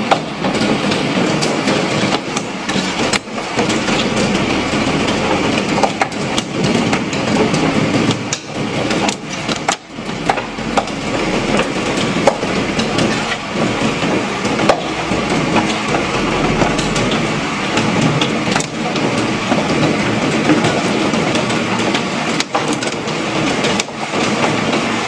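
Hailstones pelting down on a street and parked cars: a loud, steady clatter of countless small impacts.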